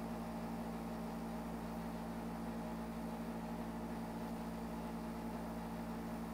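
Steady low hum with a faint even hiss: background noise of the microphone and room.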